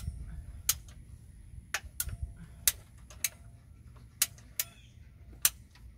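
Hand-squeezed pipe cutter clicking as it is worked through plastic drain pipe: sharp single clicks at uneven intervals, about one a second.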